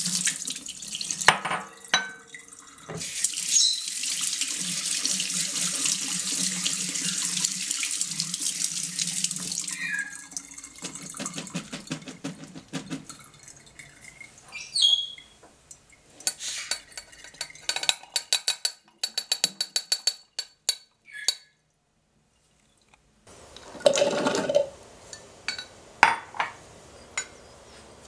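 Soaking water poured off cashews through a stainless mesh strainer into a steel sink, then tap water running over the cashews as they are rinsed. A run of rapid light clicks follows. Near the end comes a short clatter of cashews tipped into a plastic food processor bowl.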